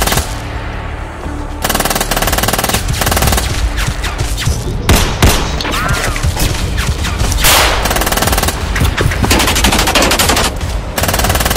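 Long bursts of rapid automatic gunfire, one after another, with a quieter lull in the first second or two.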